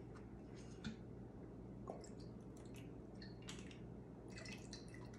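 Faint pouring and dripping of olive oil from a glass bottle into a pan of beaten egg, with a few soft ticks and rustles scattered through it.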